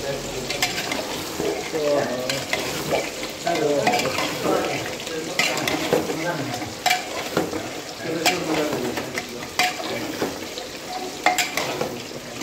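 A steel spoon stirring chicken curry in a pressure cooker pot while the masala sizzles, with repeated sharp clinks of metal against the pot.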